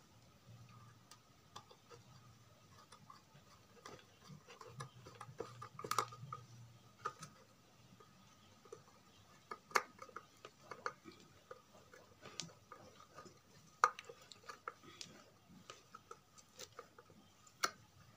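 Faint, scattered metallic clicks and small scrapes of a screwdriver working at the RCA jack sockets on a home theatre amplifier's back panel, with a handful of sharper clicks spread through.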